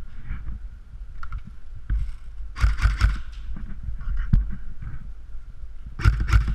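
Handling and movement noise from an airsoft player's gear, with two loud clusters of sharp knocks, one about two and a half seconds in and one near the end, and a single sharp click in between.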